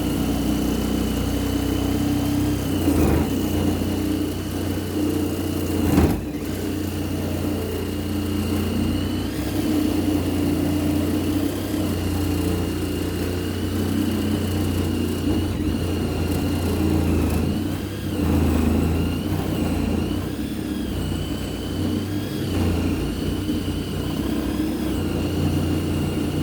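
Reciprocating saw cutting through an old, tough pipe on a gas furnace, running steadily with a high, wavering squeal from the blade in the metal. There is a sharp knock about six seconds in.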